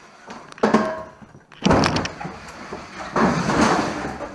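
Snowmobile on a wheeled dolly being rolled off a wooden elevator platform: two loud knocks about a second apart as the dolly bumps over the platform, then a rolling, rattling rumble across the concrete floor.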